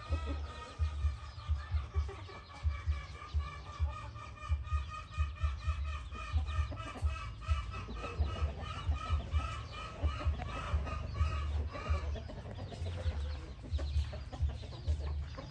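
Chickens clucking, with a rapid run of evenly repeated calls that stops about twelve seconds in. Frequent low thumps sound throughout and are the loudest events.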